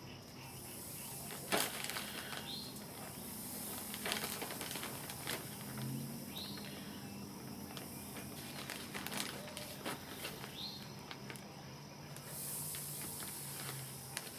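Quiet outdoor ambience: a bird gives a short chirp about every four seconds, over a high hiss that comes and goes. A few sharp clicks and knocks of handling sound in between.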